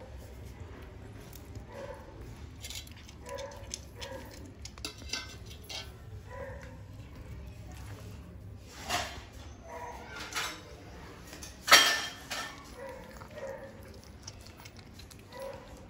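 A cat chewing a piece of raw fish, with short wet crunches and clicks, and one louder, sharp clink about three-quarters of the way through.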